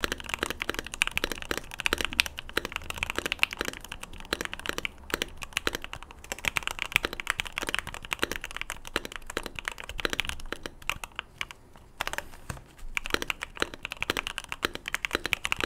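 Fast typing on a Keychron Q1 custom mechanical keyboard fitted with Gateron Milky Black and Boba U4T switches: a dense run of high-pitched popping keystrokes with deeper spacebar strokes among them. The typing pauses briefly about eleven seconds in, then resumes.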